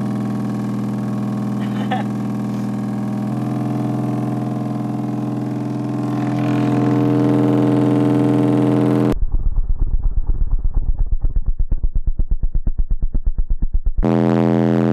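Kenwood subwoofer in a homemade cardboard box playing a steady low bass tone, heard as a loud, even hum with strong overtones. About nine seconds in the sound changes to rapid, evenly spaced bass pulses, about eight a second, for some five seconds, and then the steady tone comes back.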